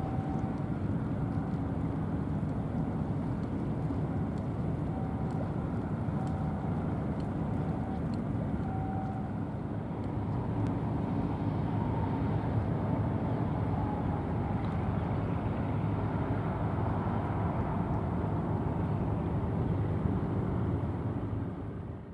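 Steady low rumble of distant engines and traffic around a port. A faint short high note repeats about once a second for the first nine seconds, and the rumble fades out at the very end.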